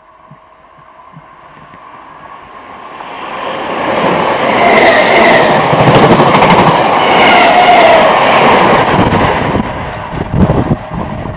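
Greater Anglia class 317 electric multiple unit passing close by on the line. It grows louder as it approaches, is loudest for about five seconds as the carriages go by, then fades as it moves away. A single sharp knock sounds near the end.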